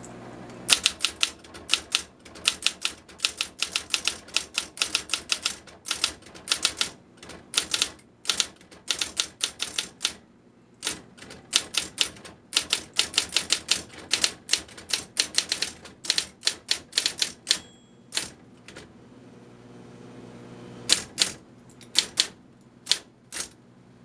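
Sears Best Corrector electric typewriter (built by Brother) being typed on: quick runs of sharp typebar strikes over the motor's steady hum. The typing stops for a couple of seconds near the end, then a few more strikes follow.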